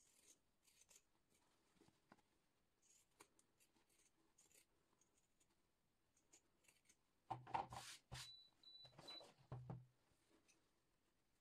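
Pinking shears snipping through cotton fabric in a series of soft, short cuts. About seven seconds in comes a louder stretch of clicks and rustling from handling the shears and fabric.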